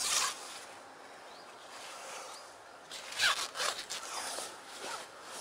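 Zip and nylon fabric of a carp flotation sling being pulled open and handled: a short rasp right at the start, then a quicker run of rasping zip strokes about three seconds in.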